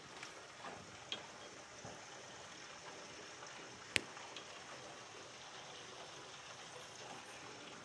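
Heavy rain falling steadily, with water pouring off a leaking, overflowing roof gutter and scattered drips and splashes. A single sharp click about four seconds in.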